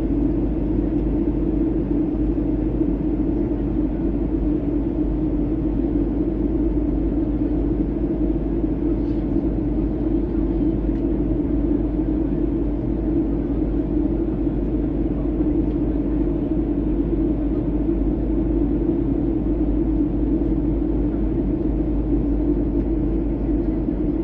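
Steady in-flight cabin noise of a jet airliner: the constant low rumble of the engines and airflow, unchanging throughout.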